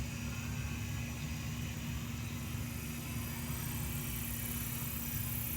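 Steady low mechanical hum with a constant tone, as of a motor running.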